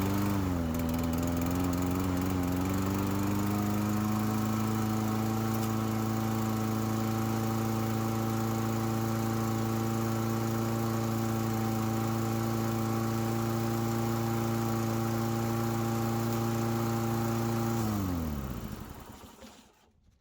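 Toro Recycler push mower's small engine running on its own, its clogged carburetor jet cleaned out. The speed picks up a little over the first few seconds and then holds steady. Near the end the engine is shut off and winds down.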